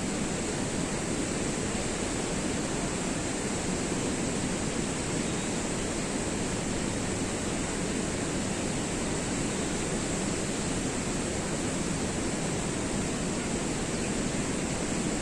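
Steady, even rush of water pouring down the man-made falls of the Shushtar hydraulic system, with no break or change.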